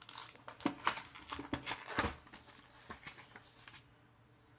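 Cardboard retail box being handled and opened: a run of scrapes, taps and crinkles of the cardboard, with a few sharper clicks in the first two seconds, dying away near the end.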